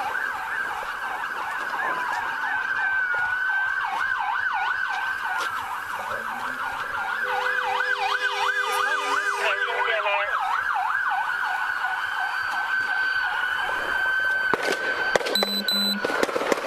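Police car sirens sounding at once, a fast yelp and a slower wail overlapping, the yelp strongest midway. A short electronic beep sounds near the end.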